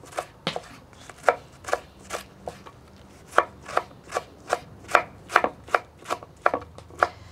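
Kitchen knife slicing a cabbage into thin shreds on a wooden cutting board: a run of sharp knocks as the blade meets the board, about two to three cuts a second, louder and more even in the second half.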